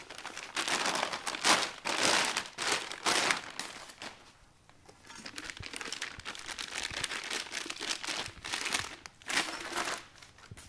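Clear plastic packaging crinkling as it is pulled off and handled around steel frame bars, in repeated bursts with a lull of about two seconds near the middle.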